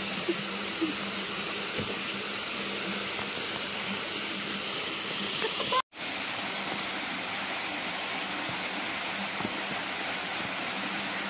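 A steady, even hiss like rushing water, cutting out to silence for a moment about six seconds in.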